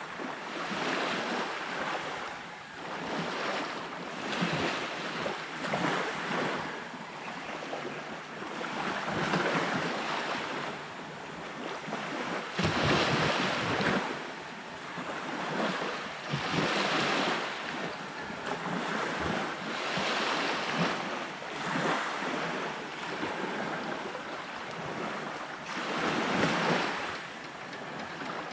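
Sea waves breaking and washing up the beach, surging every few seconds, with wind blowing.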